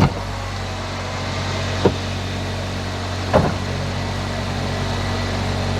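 Toyota Corolla 1.8 four-cylinder engine idling steadily just after a cold start, still running normally, with a few brief sharp knocks or clicks over it.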